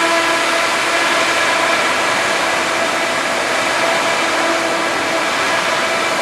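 KA 110u five-axis CNC machining center milling a turbine part: a steady rushing noise with several high whining tones held constant. A lower tone comes in for about a second near the middle.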